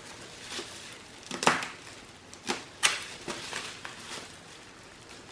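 A knife cutting and prying at cardboard packaging: a few short, sharp scrapes and snaps, the loudest about a second and a half in and two more near three seconds.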